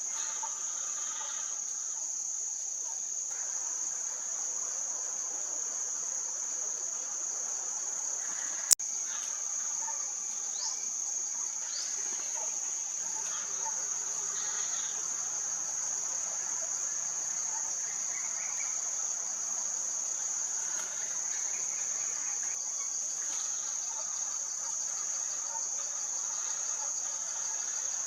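A steady high-pitched shrill of insects that goes on without a break, with faint short bird chirps here and there. A single sharp click comes about nine seconds in.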